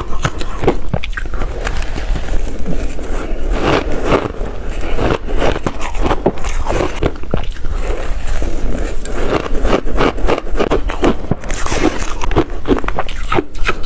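A person eating in big bites: biting and chewing with crunching, many irregular clicks and crackles following one another in quick succession.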